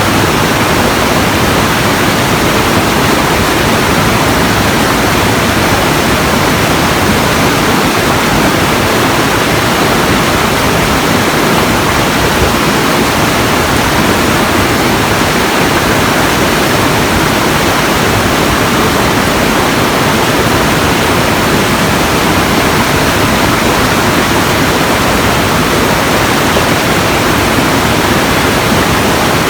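Loud, steady rushing noise spread evenly across low and high pitches, unchanging throughout, with no distinct events.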